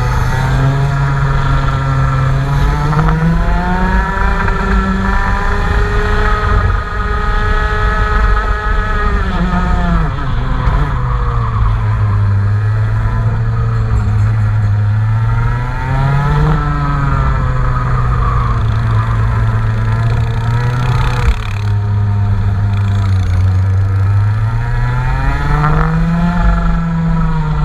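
Engine being run on test, held at a steady speed for several seconds at a time, with the revs rising and falling between holds several times.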